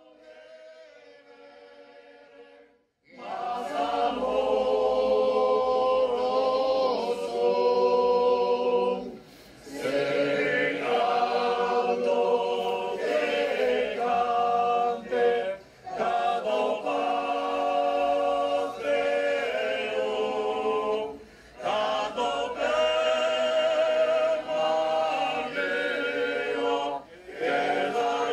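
A cappella choir singing as background music, faint at first and then coming in loudly about three seconds in, in long phrases with short pauses between them.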